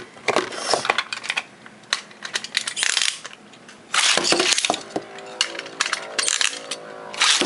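Plastic clicks and clatters as a Beyblade is handled and loaded, then a loud burst as it is launched into a plastic BB-10 stadium. The top then spins with a steady whirring hum, and near the end a second loud launch burst cuts in.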